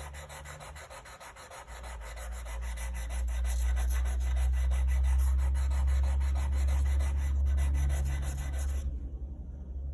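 Block plane blade held in a honing jig, rubbed back and forth on 150-grit sandpaper: a steady scraping grind that grows louder over the first few seconds and stops abruptly near the end. The 30-degree primary bevel is being ground back, removing the secondary bevel.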